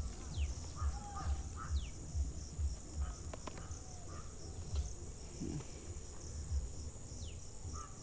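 Low, uneven thumping rumble on the microphone throughout, with a bird's short falling whistle several times and a couple of sharp clicks near the middle as vine plants are pulled up by the roots.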